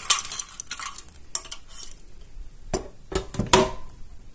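Fried potato cubes being tipped from an air fryer basket into a glass dish: scattered knocks and clinks of the basket and utensil against the dish, with a quick cluster of knocks about three seconds in.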